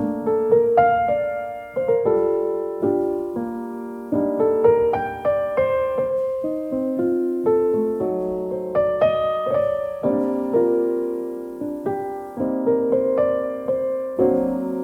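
Solo piano music playing a gentle melody, each note struck and then fading.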